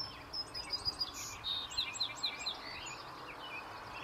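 Small birds chirping and singing, short high notes coming thick in the first three seconds, including a quick run of four falling notes about two seconds in.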